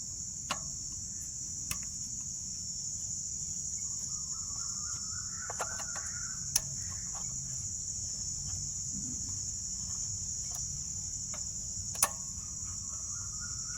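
Steady high-pitched chirring of crickets, with a few sharp clicks, the loudest about twelve seconds in.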